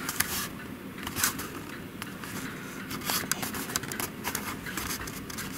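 Handling noise of a camcorder being picked up and moved around: irregular scrapes, rustles and small knocks against the microphone.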